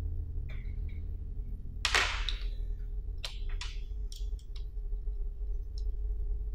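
Small metal screws and fittings clicking and clinking as they are handled and pulled from an electromagnetic lock's body, with one loud ringing clink about two seconds in and a quick run of lighter clicks a second or two later. A steady low hum runs underneath.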